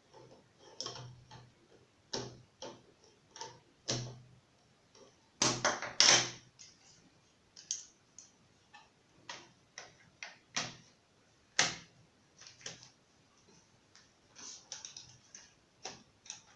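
Irregular small clicks and taps from hands and tools working on a laptop during a hard drive swap, with a louder cluster of knocks about five to six seconds in.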